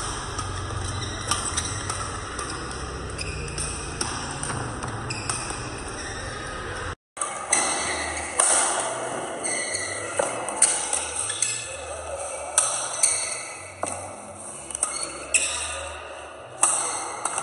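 Badminton rally: rackets strike the shuttlecock with sharp cracks every second or two, with high squeaks between them. The sound drops out briefly about seven seconds in, then the rally sounds go on.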